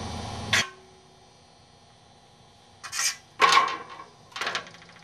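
Soapstone marker scratching short strokes on a steel sheet: one scratch about half a second in, a quiet gap of about two seconds, then three quick scratches.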